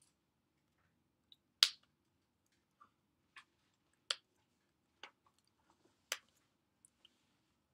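Incidental sounds of a person signing: a scattering of short, sharp clicks and taps at irregular intervals, the loudest about a second and a half in, over faint room hum.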